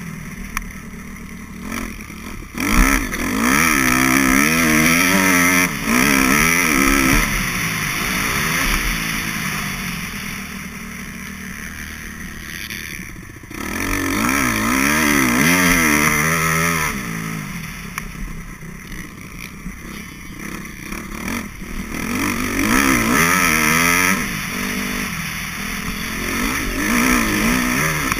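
Dirt bike engine heard from on board, revving up hard through the gears several times and easing off in between as the rider throttles on and off around a motocross track.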